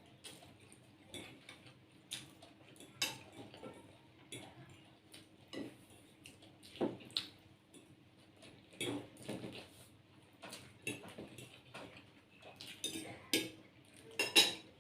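Cutlery clinking and scraping against plates in irregular light taps, about one or two a second, as people eat Maggi instant noodles.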